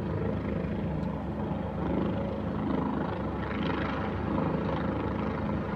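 Air ambulance helicopter running steadily on the ground, its turbine and rotor turning at a constant pitch while it waits to lift off.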